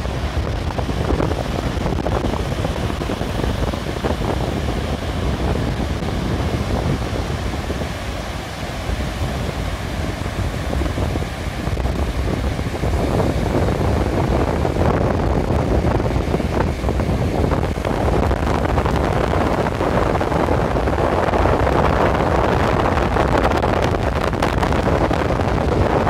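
Strong wind buffeting the microphone, with the surf of a choppy sea breaking on a shallow sandy shore behind it. The rush grows louder from about halfway through.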